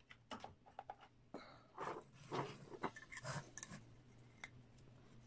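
Irregular small clicks, taps and short scrapes of hands handling a siren horn's black plastic housing, speaker driver and wires on a tabletop, busiest in the middle.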